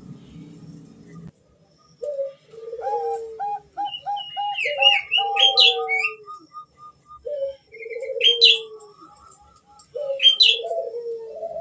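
Female zebra dove (Bangkok perkutut) cooing to call a male: three phrases, about two, seven and ten seconds in, each a quick run of short staccato coos ending in a longer, lower drawn-out note. Sharp high chirps sound over the coos.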